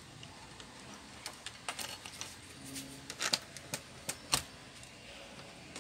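Scattered light clicks and taps of hard plastic laptop case and hinge parts being handled, with a few sharper clicks around the middle.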